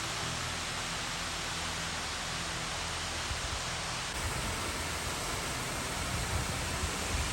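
Steady rushing of water from a creek or waterfall, an even hiss, with a few low thumps near the end.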